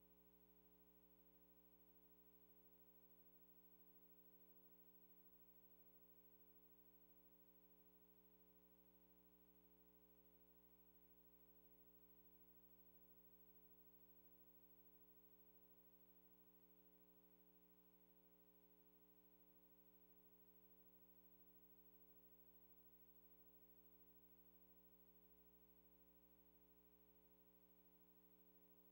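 Near silence: a faint steady hum with no other sound.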